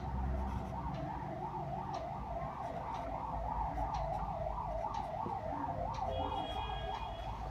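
An emergency vehicle's siren in a rapid warble, its pitch rising and falling about three or four times a second.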